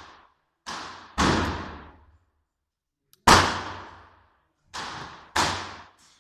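A string of shots from a .44 cap-and-ball black-powder revolver, a Santa Bárbara copy of the Remington 1858 New Model Army. There are about five sharp reports of differing loudness, the loudest about a third of the way in, each dying away in a long echo.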